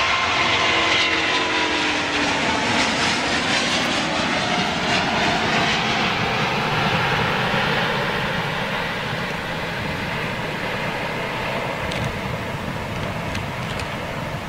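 Airbus A350's Rolls-Royce Trent XWB turbofans at take-off thrust as the airliner rotates and climbs away: a steady jet roar with whining tones that slide down in pitch in the first couple of seconds. The roar gradually fades in the second half.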